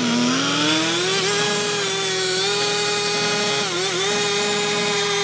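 Hilti gas-powered cut-off saw, its two-stroke engine at high revs and its abrasive disc cutting through old cast-iron sewer pipe. The engine pitch climbs over the first second, holds steady, and dips briefly about two-thirds of the way through as the disc bites.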